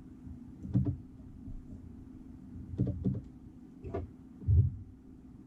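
Handling noise at a fly-tying desk: a few light clicks and knocks from tools and the vise being worked, the loudest a dull thud near the end, over a steady low hum.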